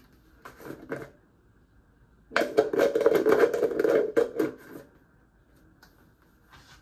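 A plastic tub of body cream handled in the hands, with its lid being twisted: about two and a half seconds of rapid clicking and scraping, starting a little past two seconds in.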